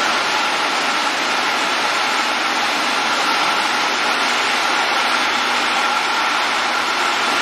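Steady running noise of a three-piece food can making line's machinery: an even rushing hiss with a faint steady whine.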